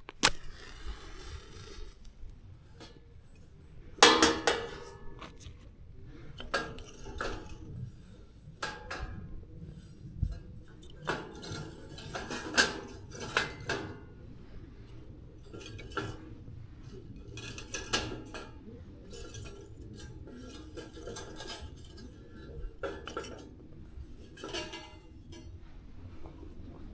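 Metal camp cookware and utensils clinking and clattering as they are handled: a long run of sharp clinks and short rattles, the loudest about four seconds in and again around twelve to thirteen seconds.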